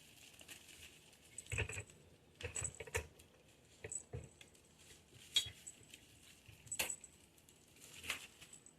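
Light clicks, taps and small jingles at irregular intervals as a cat toy is taken out of its packaging and handled.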